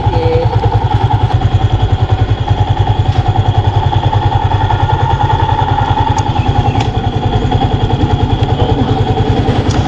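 Small motorcycle engine idling steadily close by, an even, fast low putter that holds the same speed throughout.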